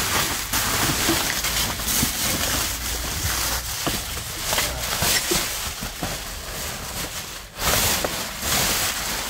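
Clear plastic bags and wrapping crinkling and rustling as hands rummage through bagged rubbish, with irregular crackles throughout.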